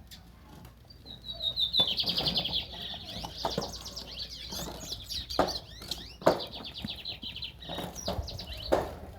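Young lined seedeaters (bigodinhos) singing a rapid, trilled twittering song, starting about a second in and going on with short breaks. Several sharp knocks are mixed in with the song.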